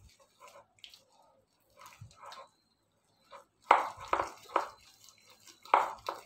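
Spoon stirring a thick mixture of jaggery water and wheat flour in a bowl: wet squelching and the spoon scraping the bowl in irregular strokes, a few of them loud a little past halfway and again near the end.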